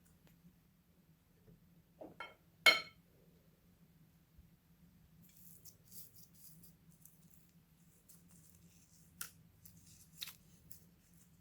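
Homemade slime being handled and mixed: faint sticky crackling and popping, with a few sharp taps and one loud ringing clink about three seconds in.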